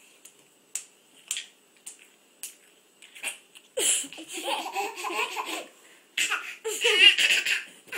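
A baby claps his hands softly about four times, then laughs loudly in two long bouts of giggling from about halfway.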